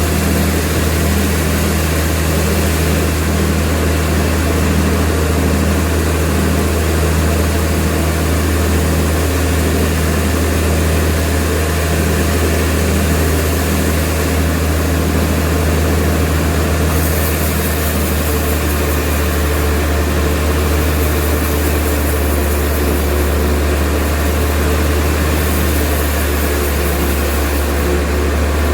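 Sawmill machinery running with a steady low engine drone, a brighter hiss coming and going in the second half.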